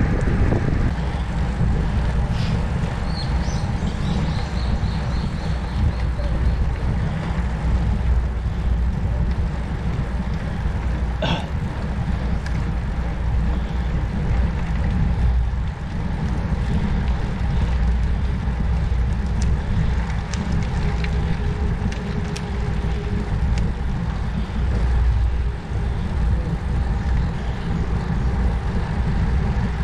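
Wind buffeting the microphone during a ride, a steady low rush with road noise underneath, and a sharp click about eleven seconds in.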